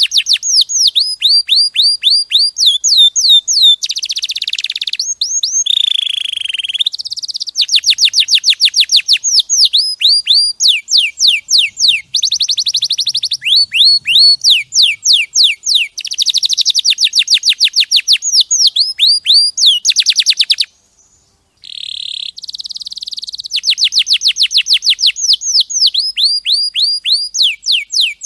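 Domestic canary singing: long, fast trills of repeated high notes that sweep downward, the trill rate changing from phrase to phrase, with one brief pause about three quarters of the way through.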